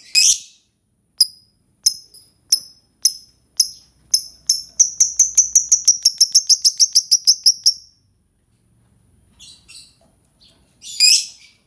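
Lovebird calling in sharp, shrill chirps. The chirps come about half a second apart at first, then speed up into a rapid chattering run of about seven a second, the long 'ngekek' song. The run breaks off, and a few quieter calls and one loud burst follow near the end.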